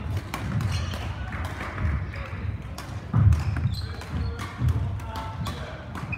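Badminton hall with play going on: sharp racket-on-shuttlecock hits at an irregular pace, dull thuds of players' feet on the court, and voices in the background.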